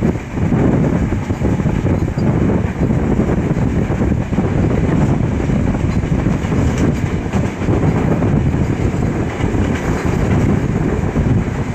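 Steady running noise of a moving intercity passenger train heard from inside a PT INKA-built coach: wheels rolling on the rails, with a continuous low rumble and no let-up.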